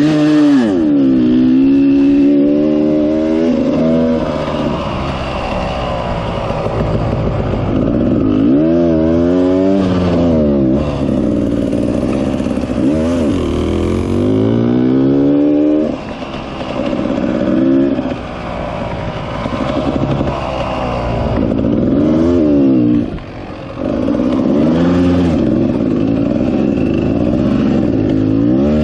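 Dirt bike engine being ridden on soft beach sand, its revs rising and falling repeatedly as the throttle is opened and eased off, with brief drops near the middle and about two-thirds of the way through.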